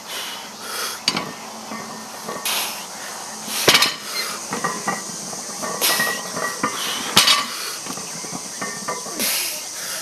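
Loaded 315 lb barbell clinking and clanking, the plates knocking on the bar through a deadlift rep, with hard breathing between the knocks. The loudest clank comes a little under four seconds in.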